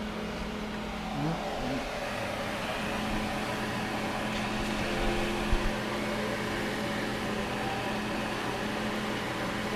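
A steady mechanical hum and whir from a running electric motor, with a couple of light knocks about five seconds in.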